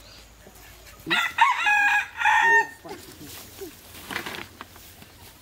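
A rooster crowing once, starting about a second in and lasting about a second and a half, with its pitch held in several steps.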